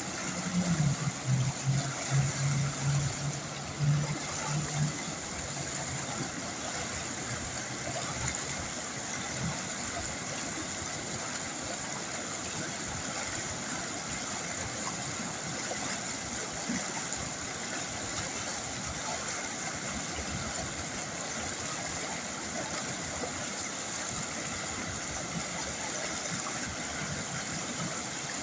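River water flowing steadily, a constant rushing hiss. In the first five seconds a low hum comes and goes under it, with a few louder swells.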